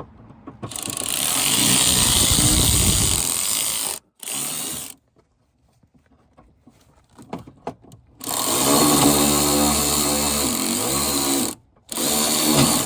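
Cordless power driver running in several bursts, driving fasteners: a long run of about three seconds, a short blip, a second long run whose motor pitch rises and falls, and a short run near the end.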